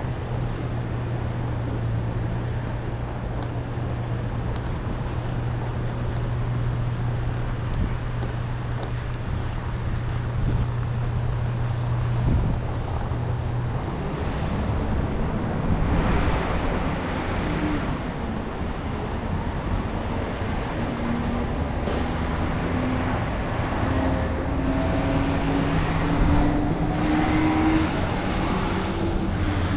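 City street traffic: a steady low engine hum for the first half, a vehicle passing by about halfway, then a rising whine as a vehicle pulls away and speeds up near the end.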